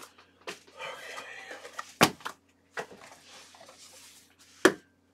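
Objects being handled and set down on a tabletop: two sharp knocks about two and a half seconds apart, with soft rustling and small clicks between them.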